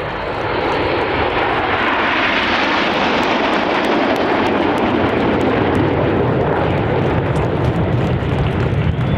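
A formation of seven BAE Hawk T1 jets flying past, their Adour turbofan engines giving a continuous roar that drops and deepens into a low rumble as they pass.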